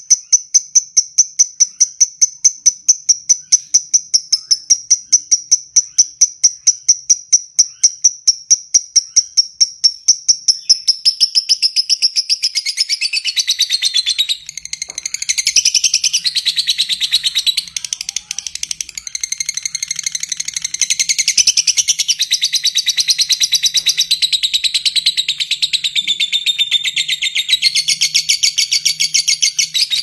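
Fischer's lovebird calling: a rapid, even train of sharp high chips (the 'ngetik' ticking), which about eleven seconds in runs into a long, dense, continuous chattering trill (the 'ngekek') that varies in pitch and stops abruptly at the end.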